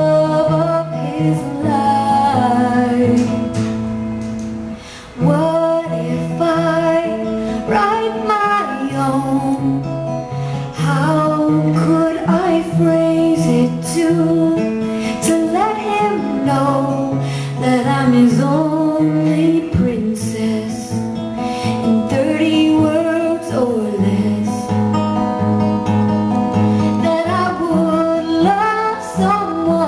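A woman singing live to her own strummed acoustic guitar, the music dropping away briefly about five seconds in.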